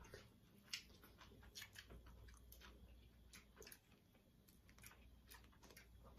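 Faint, scattered clicks of people eating boiled shrimp: chewing, and shells being peeled by hand.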